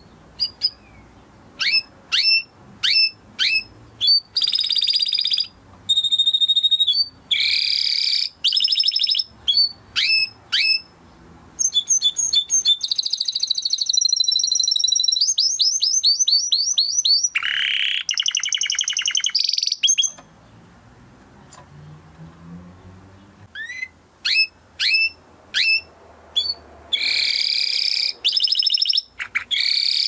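Domestic canary singing: a run of short falling chirps, then fast trills and dense buzzy rolls, breaking off for a few seconds about two-thirds of the way through before starting again.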